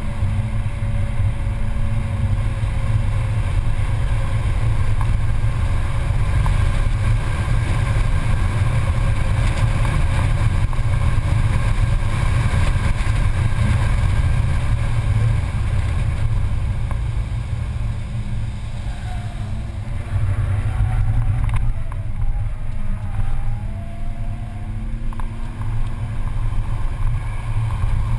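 Mercedes-Benz C280 engine running hard at track speed, heard from inside the cabin with heavy wind and road noise. A little past the middle the sound drops, then the engine note climbs again in pitch.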